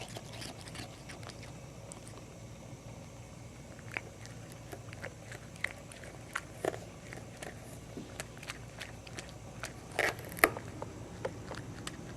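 A cat chewing fresh cat grass: soft, irregular crunches and crisp bites, with a louder burst about ten seconds in.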